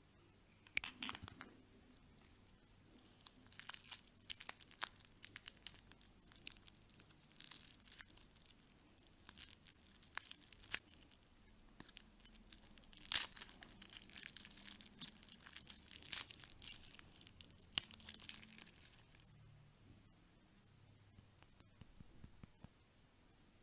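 A wrapper being torn open and crinkled by hand: a short crackle about a second in, then a long run of sharp crackling and tearing that stops a few seconds before the end.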